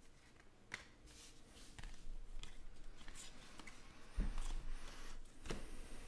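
Stack of baseball trading cards being flipped through by hand: glossy cards sliding and rustling against each other, with a few light clicks and a couple of firmer taps in the second half.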